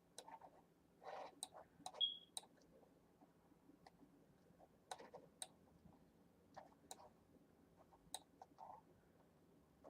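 Faint, irregular computer mouse clicks, a dozen or so scattered through otherwise near silence.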